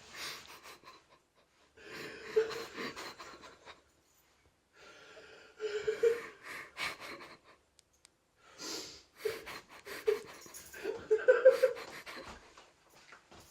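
Uncontrollable, wheezing laughter coming in three breathless fits with short pauses between.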